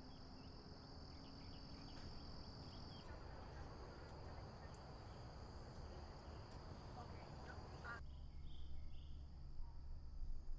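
Outdoor background noise with a steady high-pitched insect drone, such as crickets or cicadas, and a low rumble; the sound changes abruptly about three and eight seconds in.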